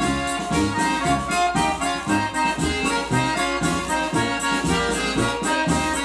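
Accordion-led Brazilian festa junina music with a band, played from a vinyl LP on a turntable, over a steady bass beat.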